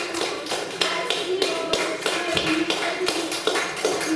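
A group of people clapping in time, about three claps a second, over a tune.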